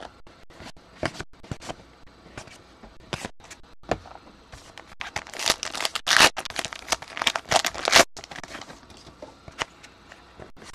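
Hands handling baseball trading cards and a card pack wrapper: a run of short rustles and clicks, with the wrapper crinkling and tearing open about five to eight seconds in.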